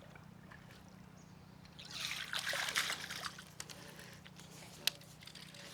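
Water splashing and trickling for about a second and a half, starting about two seconds in, followed by a single sharp click near the end.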